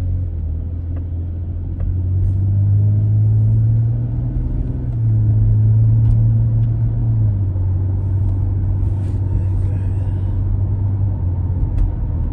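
Car engine and road noise heard from inside the cabin while driving, a steady low hum whose pitch steps up about two seconds in and drops back down past the middle as the car speeds up and eases off.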